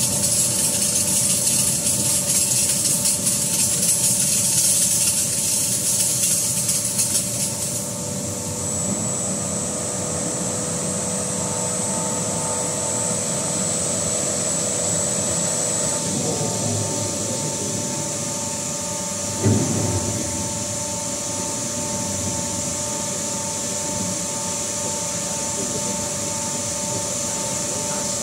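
CNC metal spinning machine forming a sheet-metal fan impeller shroud: the roller rubs against the spinning blank on the mandrel over a steady machine hum. A harsh hiss for about the first eight seconds gives way to a steadier hum with a high whine, and there is a single knock a little past the middle.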